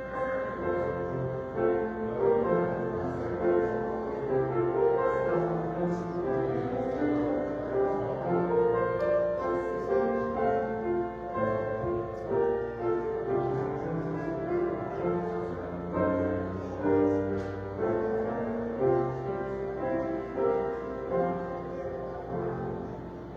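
Slow instrumental music with held chords and no singing.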